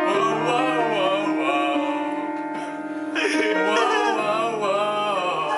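A man singing a melody to piano accompaniment; the singing eases off a little past the middle and comes back stronger about three seconds in.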